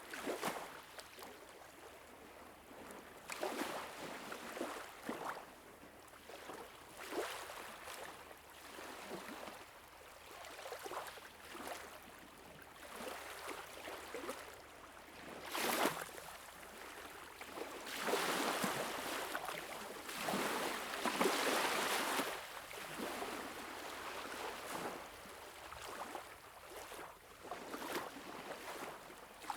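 Water washing and lapping in uneven surges every few seconds, with a longer, louder surge about two-thirds of the way through.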